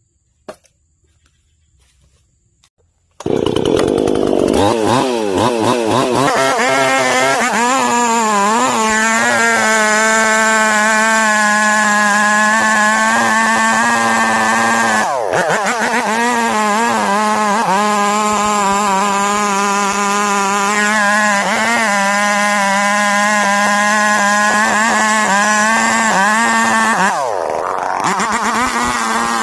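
Near silence, then about three seconds in a chainsaw comes in loud, running at high revs. Its pitch dips briefly twice before coming back up.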